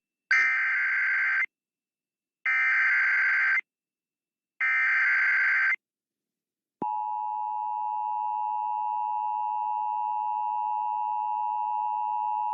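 Emergency Alert System tones: three short bursts of SAME header data about a second apart, then the steady two-tone attention signal starting about seven seconds in. Together they announce an emergency alert message.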